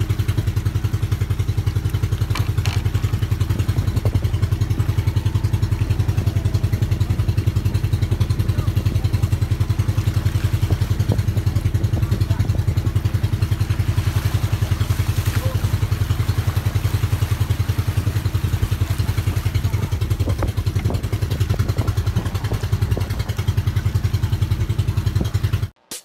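Engine of a motorized outrigger boat (bangka) running at a steady speed, a fast even putter; it cuts off suddenly near the end.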